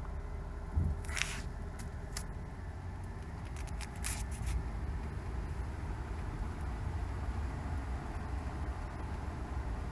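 Low, steady rumble of a car driving slowly through a flooded street, heard from inside the cabin, with a few short crackles about a second in and again around four seconds.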